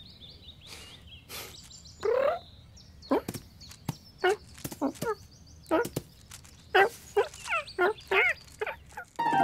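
Cartoon cat's voiced vocalisations: one loud rising meow about two seconds in, then a quick run of short chirruping mews and trills.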